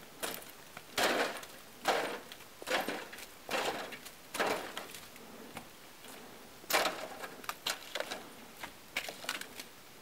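Skis sliding and crunching through deep snow in about five even strides a little under a second apart, followed by a scatter of small clicks and knocks from ski gear.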